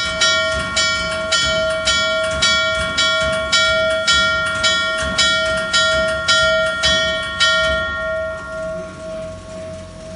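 Steam locomotive bell ringing, struck about twice a second for some seven seconds; the strokes then stop and the last ring dies away.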